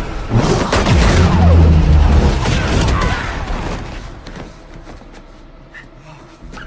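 Film fight sound design: a heavy rumbling boom with rapid sharp impacts over score music. It builds about half a second in and dies away after about four seconds.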